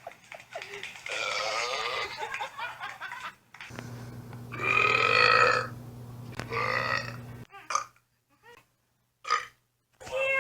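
A man belching: three long, rough burps one after another, the loudest about five seconds in, followed by a few short bursts near the end.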